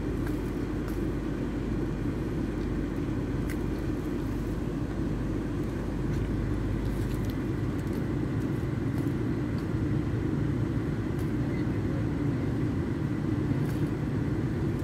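A steady low rumble, with a few faint sharp clicks now and then.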